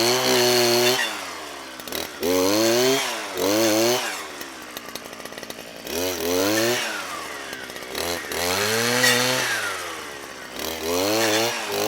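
Petrol brushcutter engine revving up and dropping back several times as the throttle is squeezed and released, settling to a lower idle between revs.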